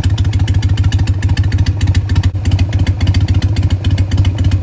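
2003 Harley-Davidson Sportster 883's air-cooled V-twin engine running steadily, a rapid, even beat of firing pulses.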